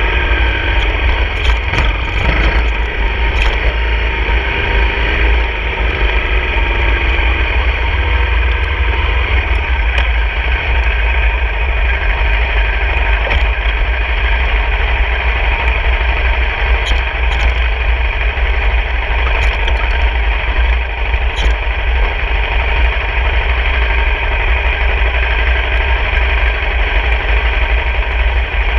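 Honda CRF250 dirt bike's single-cylinder four-stroke engine running steadily while riding, under heavy wind noise on the microphone, with a few faint knocks from the bumpy dirt road.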